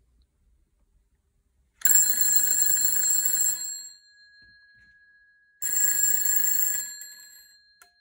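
A 1940s GPO Bell 1A telephone repeater bell, driven by a BT ringing generator, rings in two bursts of about two seconds each, its twin gongs ringing on and fading after each burst. It is working as a WiFi-triggered doorbell.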